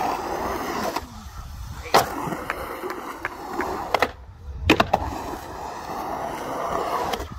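Skateboard wheels rolling and carving on a concrete bowl, a continuous grinding roll, broken by sharp clacks of the board against the concrete: one about two seconds in and a couple around four to five seconds in, as the skater goes up for an air and lands.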